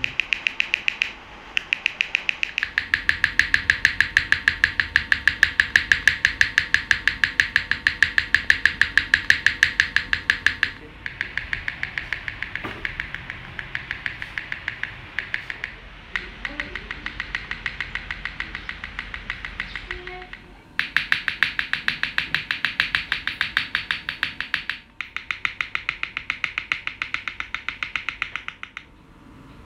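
Spacebars of aluminium-cased mechanical keyboards with Cherry MX Black linear switches tapped over and over, a steady run of sharp clacks several times a second. The run breaks off briefly a few times as one keyboard gives way to the next.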